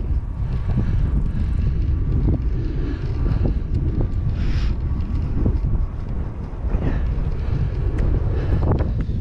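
Wind buffeting the microphone on a moving bike: a loud, steady low rumble with scattered small knocks and a brief hiss about four and a half seconds in.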